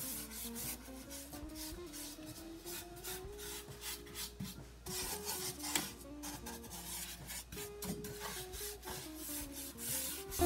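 A round chalk-paint brush scrubbing thick chalk paint onto a wooden stand, many short scratchy back-and-forth strokes.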